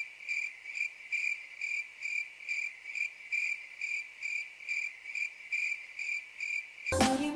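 Cricket chirping, a clean high chirp repeating evenly about two and a half times a second. It is the stock 'crickets' sound effect, dropped in where the music cuts out abruptly.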